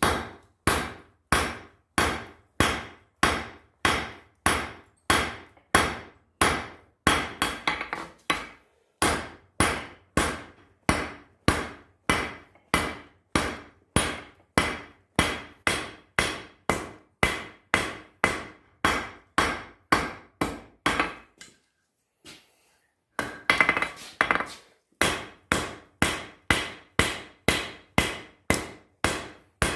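Blacksmith's hand hammer striking steel on an anvil in steady blows, a little under two a second, each with a short ring. The rhythm breaks briefly about three-quarters of the way through, followed by a quick flurry of strikes before the steady blows resume.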